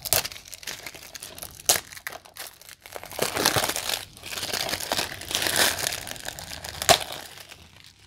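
Clear plastic shrink wrap being torn open and peeled off a DVD case, crinkling, with a few sharp snaps of the plastic: one at the start, one at about 1.7 s and one near the end. The densest crinkling comes in the middle, as the wrap is pulled away from the case.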